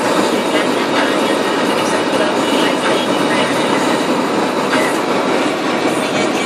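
Steady drive noise inside a 1998 Dodge Durango's cabin: engine, drivetrain and tyres on a snow-covered road, with four-wheel drive engaged.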